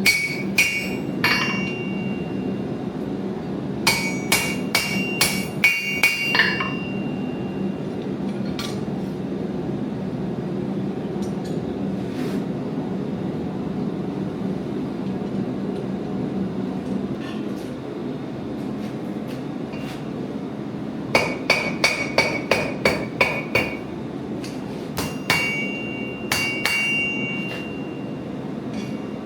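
Hand-hammer blows on metal at the anvil, coming in quick runs of strikes that ring with a bright tone, with a long pause in the middle. A steady low rumble runs underneath.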